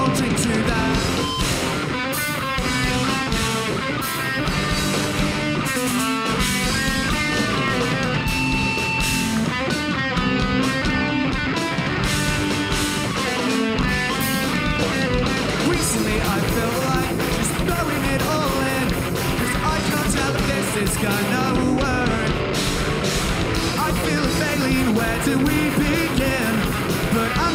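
Live rock band playing a song: two electric guitars through amplifiers, an electric bass and a drum kit.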